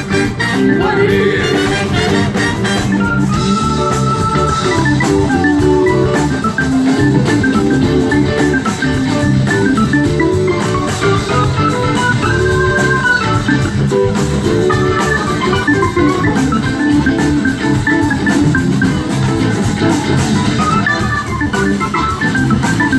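Live band playing an instrumental passage: drum kit and bass under a melodic lead line.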